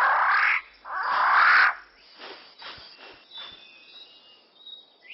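Male riflebird of paradise displaying: two loud, harsh sounds about a second long each, close together in the first two seconds, then fainter forest birdsong.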